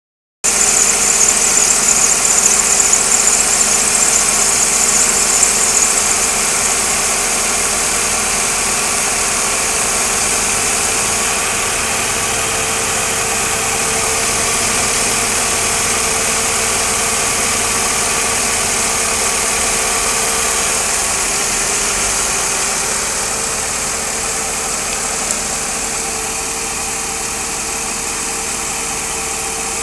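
Mercedes-Benz M104 straight-six engine idling, with its poly-V accessory belt being treated with silicone spray against squealing. A strong high hiss over the engine for the first six seconds; then the running settles to a steadier, slightly quieter sound, dropping a little more after about twenty-three seconds.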